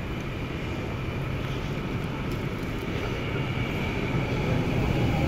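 Modern low-floor electric tram rolling slowly in alongside the platform close by: a steady rumble of wheels on rail with a faint electric motor whine, growing a little louder as it passes.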